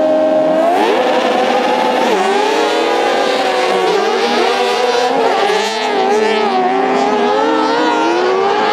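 Several crosskarts accelerating hard together from a standing start, their high-revving motorcycle engines overlapping. The pitch climbs, drops at a gear change about two seconds in, then climbs and dips again through further shifts.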